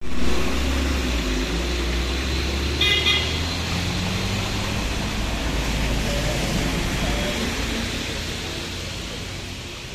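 A road vehicle passing close by with a deep engine rumble that fades after about seven seconds. A short horn toot sounds about three seconds in.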